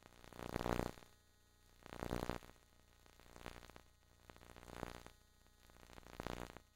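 Static-like hiss that swells and fades about every second and a half, with no speech or other clear sound.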